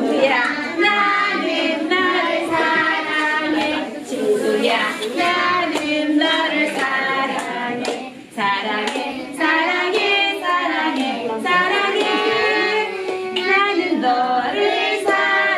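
A group of young children singing an action song together with their teacher, with some hand claps along the way.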